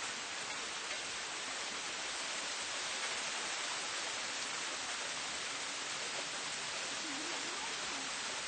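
Steady rain falling in a city, an even hiss with no distinct events.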